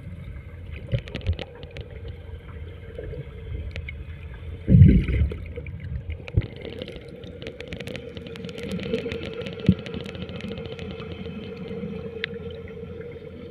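Boat engine running steadily at sea, with scattered knocks and clicks and water sloshing. A brief loud low sound about five seconds in.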